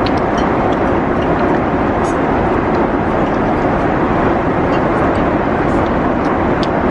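Steady airliner cabin noise in flight: the even, continuous rush of engines and airflow. A few faint light ticks sound over it.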